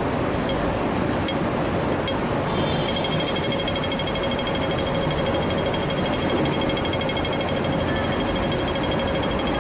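Pedestrian crossing audible signal ticking: slow ticks about two a second, switching about two and a half seconds in to a rapid, continuous high ticking. A steady rumble of street traffic lies underneath.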